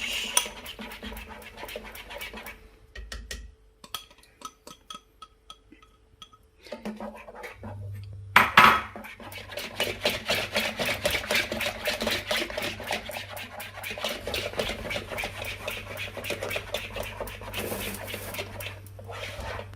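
A utensil stirring eggs into a thick flour-and-milk sauce base in a saucepan: rapid, rhythmic scraping and clicking strokes against the pot. They ease off for a few seconds, with a louder knock about eight seconds in, then carry on quickly.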